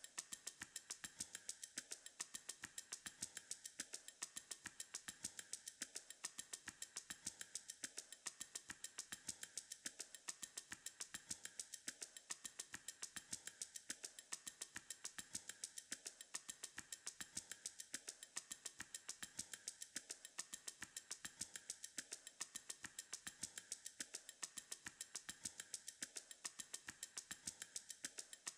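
Faint, steady, rapid ticking, clock-like and perfectly even, running on as a sound-design bed.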